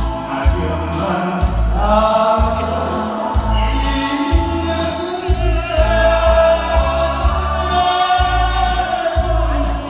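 A man singing a slow Korean song live into a microphone, holding long wavering notes over amplified backing music with a steady bass beat about twice a second.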